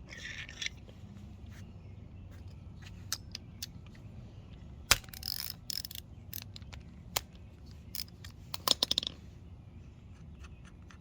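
Metal clicks and scrapes of a screwdriver and small parts as the float bowl is worked off a small-engine mower carburetor. The clicks are scattered, with a sharper clack about five seconds in and a quick run of clicks near nine seconds.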